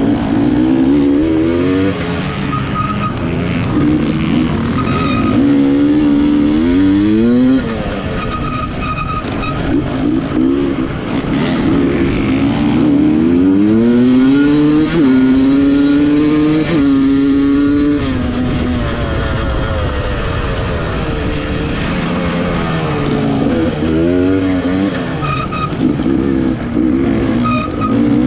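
KTM EXC 300 TPI two-stroke enduro engine heard from on the bike, revving hard under acceleration. Its pitch climbs several times and drops back between climbs as the rider works through the gears.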